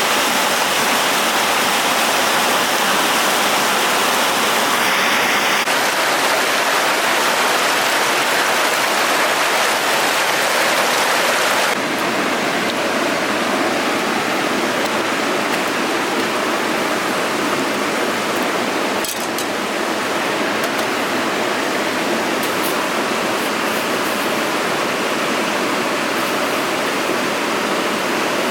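Rushing water of a mountain stream in a gorge, a steady dense rush that drops slightly in level about twelve seconds in.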